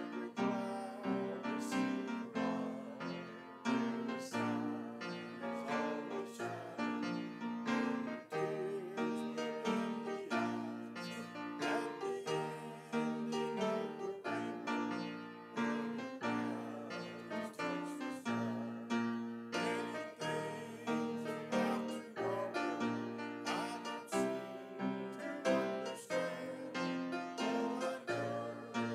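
Piano playing a hymn with chords and melody at a steady tempo.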